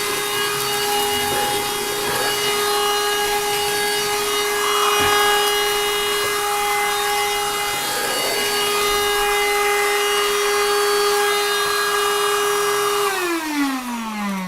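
YD610 wet-and-dry handheld car vacuum cleaner running with a steady high motor whine while picking up spilled rice, with scattered rattling and scraping. About a second before the end it is switched off and the whine falls in pitch as the motor winds down.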